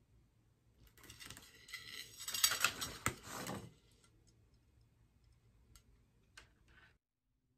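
Gold rhinestone chain clicking and rattling as it is handled and pressed around the rim of a glass plate: a dense run of tiny clicks for about three seconds, then a few single clicks.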